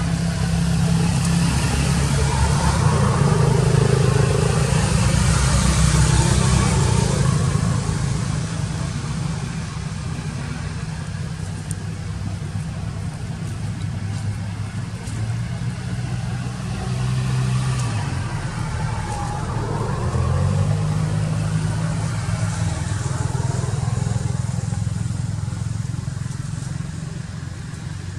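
Motor vehicle engine running with a low drone, louder in the first several seconds, its pitch stepping up and down a couple of times later on.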